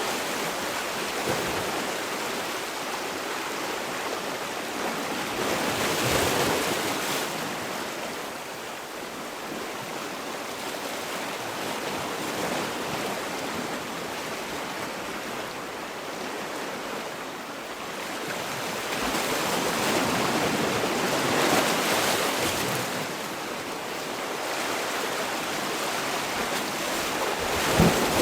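Sea waves washing in: a steady rushing that swells and eases as each wave comes in, loudest about six seconds in, around twenty seconds and at the very end.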